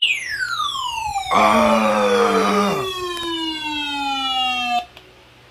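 A siren-like tone sliding steadily down in pitch for nearly five seconds, then cutting off suddenly. A louder, denser buzzing layer joins it for about a second and a half in the middle.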